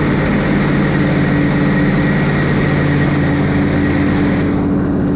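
An engine on a bowfishing boat running steadily at an even speed, a constant low droning hum.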